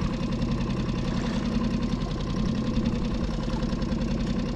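Small outboard motor on a Solo Skiff running steadily while trolling, an even low hum that holds constant.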